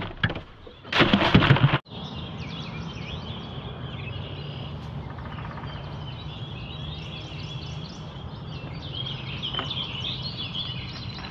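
Loud clattering and knocking as a caught catfish is handled at the boat's cooler, ending abruptly under two seconds in. Then a chorus of songbirds chirps and sings over a steady low rumble.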